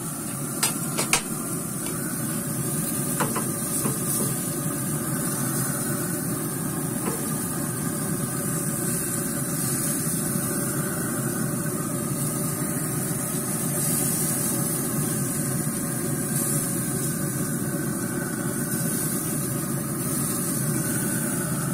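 Pellet grill running with its lid open: a steady roar of fire and fan over steaks on the grate, with a few sharp metal clinks in the first several seconds.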